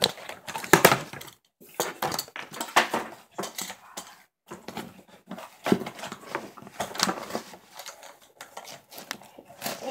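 Irregular clatter of small knocks, taps and rustles as objects are handled and set down on a work surface.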